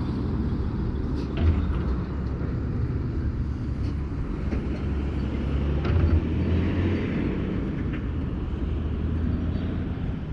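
Low, steady rumble of wind buffeting the microphone outdoors, swelling and easing, with a few faint ticks.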